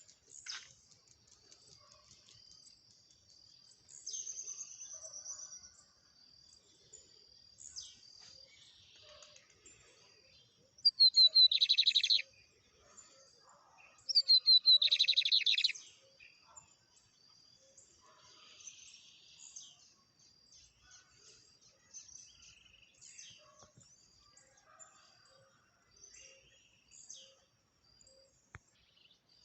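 Wild songbirds calling, with scattered high chirps throughout. The loudest sounds are two song phrases about three seconds apart, each a quick gliding whistle that runs into a fast buzzy trill lasting a second or so. Under them is a faint, steady, evenly pulsing high tone.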